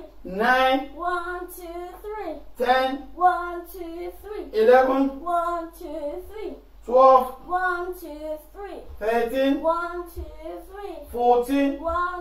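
Children's voices singing a sing-song chant, a new phrase starting about every two seconds.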